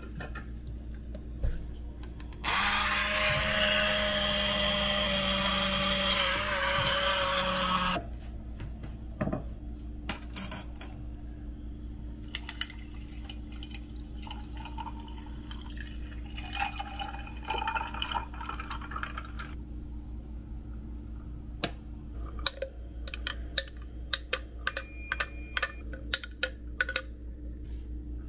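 Small portable blender whipping heavy cream and sugar: its motor runs steadily for about five seconds, then stops. Later, coffee is poured from a bottle over ice, and near the end there are light clinks of glass and spoon.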